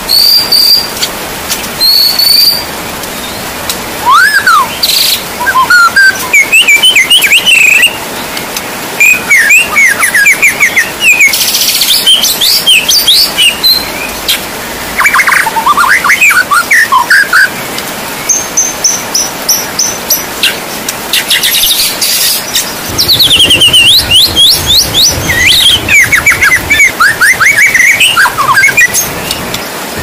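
White-rumped shama (murai batu) singing loud, varied phrases of whistles, pitch glides and rapid trills, in runs with short pauses between them, over a steady hiss of rain.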